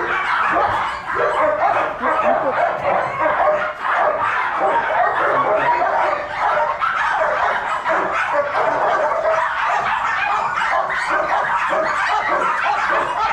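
A litter of young Shih Tzu puppies crying and yelping without pause, many small voices overlapping.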